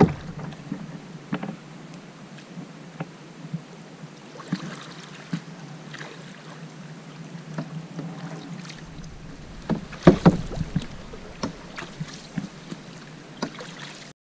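Canoe paddling on calm water: quiet paddle strokes, splashes and drips, with scattered light knocks and a cluster of louder knocks and splashes about ten seconds in.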